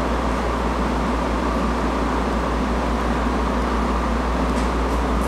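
Steady background hum: a low drone with an even hiss over it, like a fan or air conditioner running in a small room. A couple of faint clicks come near the end.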